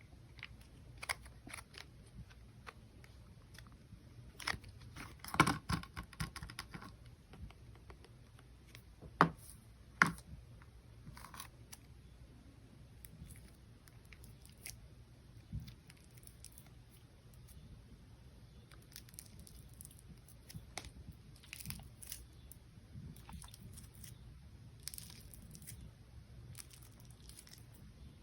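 Slime being squished and stretched by hand, giving faint sticky crackles and pops, with a cluster of louder clicks about five seconds in and two sharp pops a little later.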